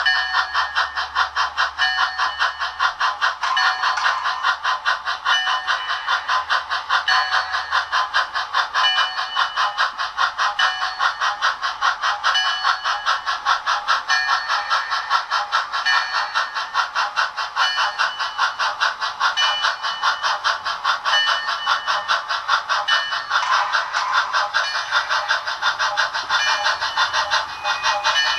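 Digital steam-locomotive sound from Tsunami sound decoders in On30 Bachmann model locomotives: an even, rapid run of chuffs that keeps the same beat throughout, with little deep bass.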